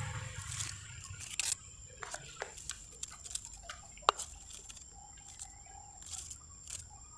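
Scattered short animal calls and clicks, with a low engine hum fading out in the first second. The loudest is a sharp, brief chirp about four seconds in.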